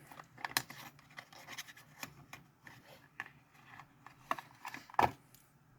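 Handling of a small folding pocketknife, a Case mini Copperlock: light scattered clicks and scrapes, with two sharper clicks a little after four and five seconds in.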